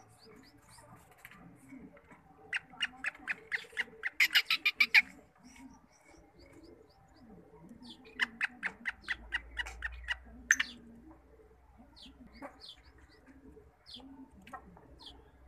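Caged black francolin giving two runs of rapid, sharp clicking call notes. The first run, a few seconds in, speeds up and gets louder. The second comes about eight seconds in.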